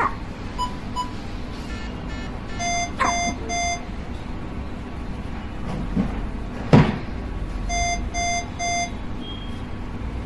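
A newborn baby hiccuping: short, sharp hics a few seconds apart, the loudest about two-thirds of the way through. Alongside, an electronic monitor beeps in quick groups of three.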